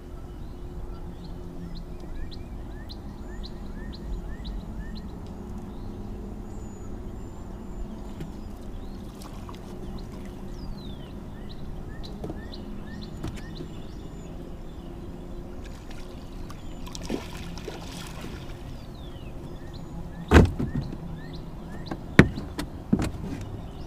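Steady low hum and faint high chirps while a catfish is hauled in by hand over the side of a metal boat, then, from about 20 seconds in, several sharp knocks against the boat's hull, the loudest about 20 and 22 seconds in.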